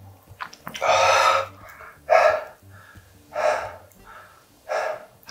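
A man breathing hard through an open mouth, four heavy breaths a little over a second apart, from the burn of very spicy ramen. A few faint clicks come near the start.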